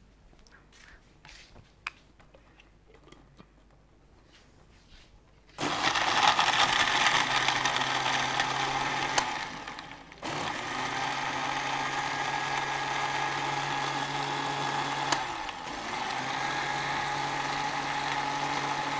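Countertop electric blender blending pineapple, milk and ice into a shake. After a few faint clicks of handling, the motor starts about five and a half seconds in and runs steadily with a low hum. It stops and restarts once about halfway, then runs on and shuts off near the end.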